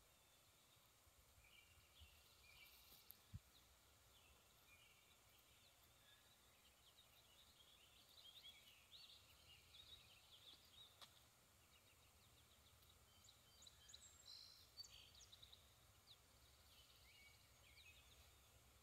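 Near silence of a quiet spring morning outdoors, with faint songbirds chirping and twittering throughout, busiest in the middle. One soft low thump about three seconds in.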